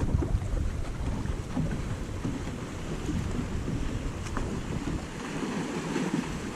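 Wind buffeting the microphone over water lapping and splashing on choppy water, with no motor running.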